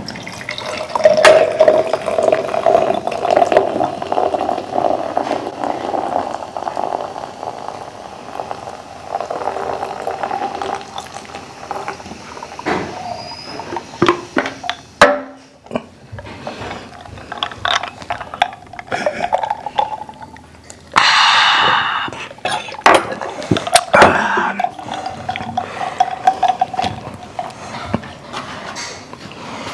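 Soda poured from a can into glass mason jars, the liquid splashing and fizzing as the jars fill, with a second pour later on. Glass and dish clinks, and a loud hiss about twenty-one seconds in.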